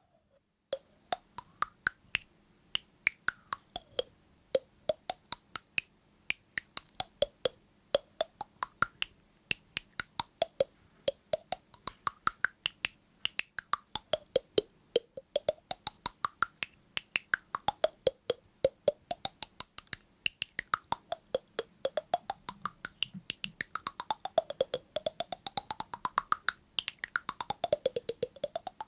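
A rapid series of sharp, pitched clicks, about two a second at first and speeding up to four or five a second near the end. Their pitch sweeps down and back up again and again, every few seconds.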